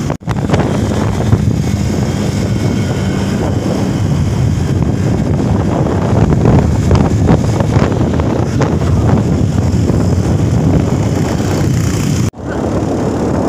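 Motorcycle on the move: engine running under steady wind noise on the microphone, with tyre noise from the wet road. The sound drops out briefly just after the start and again near the end.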